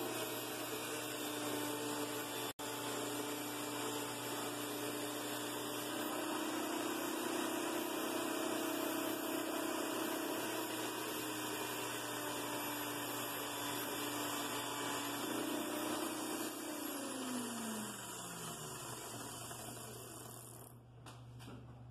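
Electric drill spinning a polishing wheel at steady speed while a coin ring is held against it for buffing. About 16 seconds in the motor is let go and winds down, its pitch falling away.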